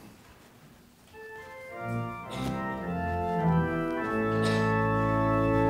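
Church organ coming in about a second in and playing held chords, the introduction to the sung Gospel acclamation, with more notes joining as it builds.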